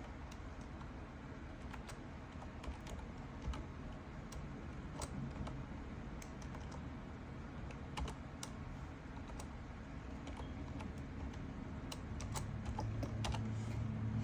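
Typing on a computer keyboard: scattered, irregular key clicks over a low steady hum, which grows louder near the end.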